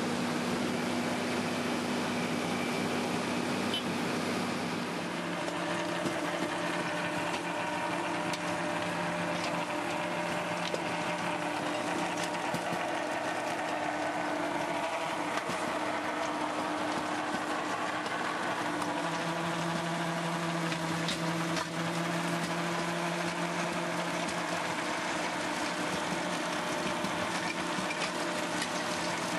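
Tractor engine running under steady load while a PTO-driven Valentini FR rotary tiller churns through soil. A steady mechanical drone whose engine note shifts in pitch a couple of times.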